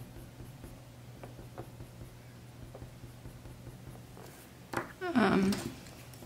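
Coloured pencil scratching lightly on drawing paper in small, fine strokes with faint ticks, over a low steady hum. About five seconds in there is a brief, louder knock and rustle.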